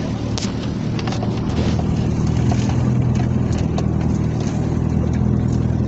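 Engine running steadily with a low hum that grows a little louder about two seconds in, with scattered sharp clicks and knocks over it.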